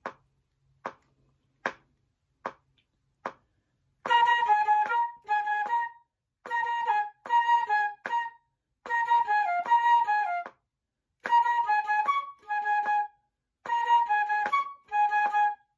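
A metronome ticks at 75 beats a minute, about once every 0.8 seconds. About four seconds in, a concert flute starts playing a slow melody in short phrases of repeated notes, mostly B-flats and A-flats with a D-flat, with brief breaths between the phrases.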